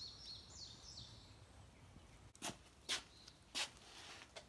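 A songbird gives a quick run of short, falling chirps, then three scuffing footsteps come about half a second apart, the loudest sounds here.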